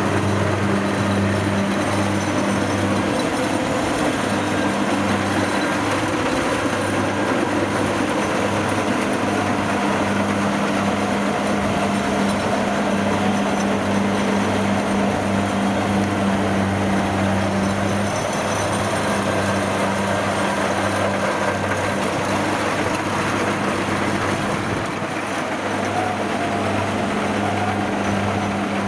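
Kubota DC-60 rice combine harvester running at working speed while cutting rice: a steady diesel engine drone with the even mechanical rush of the cutting and threshing gear.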